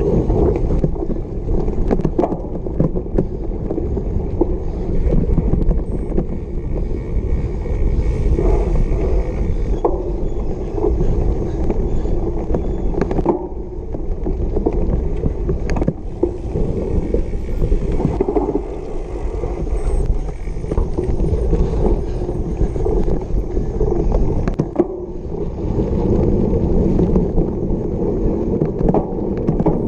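Cyclocross bike ridden hard over bumpy grass and dirt: a steady rumble of tyres on rough ground and rattling of the bike, with frequent sharp knocks over the bumps.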